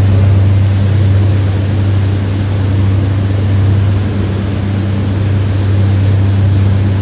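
A motorboat's MerCruiser engine running steadily under way, a low even hum over the rush of water from the wake.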